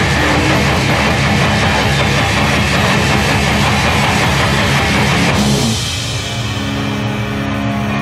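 Rock music with electric guitar from a promotional trailer's soundtrack. About five and a half seconds in, the loud, full sound drops away, leaving steady held guitar chords ringing.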